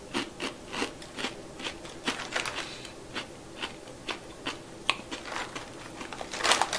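Chewing crunchy roasted black rice crackers (Korean nurungji), with short crunches about two a second. A rustle of the plastic snack bag comes near the end.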